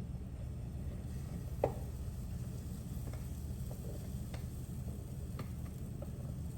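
A few light clicks and knocks of cooking utensils and cookware being handled, the sharpest about a second and a half in, over a steady low hum.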